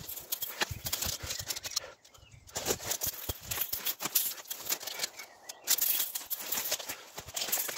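Footsteps through woodland undergrowth, with dry twigs and leaves crackling and snapping in an uneven run of clicks, pausing briefly about two seconds in and again a little after five seconds.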